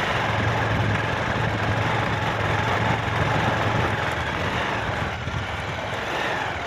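Motorcycle engine running at low, steady revs, with a steady rushing noise of wind and road over it.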